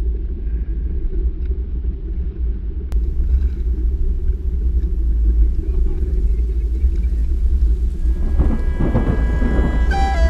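A steady, muffled low rumble of wind and sea noise on the camera at sea. Background music fades in near the end.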